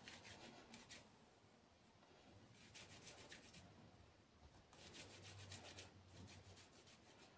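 Faint rubbing of palms rolling a small piece of soft cookie dough into a thin log, in about four short spells.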